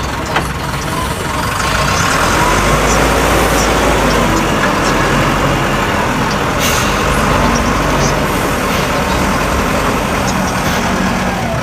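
Heavy truck engine running amid road traffic noise, the low rumble growing louder about two seconds in.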